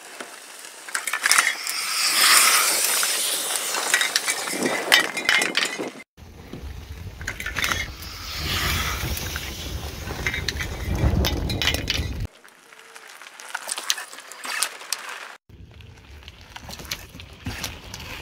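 Burning aerosol spray cans: a hissing, crackling jet of flame with many sharp pops. About six seconds in, a low car rumble joins as a tyre rolls onto the burning cans. From about twelve seconds on come quieter, scattered clicks and crackles.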